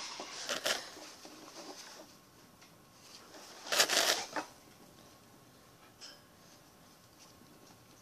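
Rustling and handling noise close to the microphone, as hair and fabric brush against the camera, with one louder rustle about four seconds in and only faint scratches afterwards.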